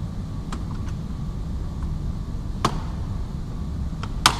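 Two sharp plastic snaps about a second and a half apart, the second louder, as interior trim clips are pried loose from the car body, over a steady low hum.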